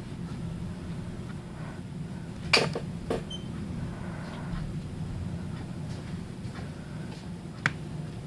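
A low steady hum of room noise with a few sharp knocks: a pair about two and a half seconds in, another half a second later, and one sharp click near the end.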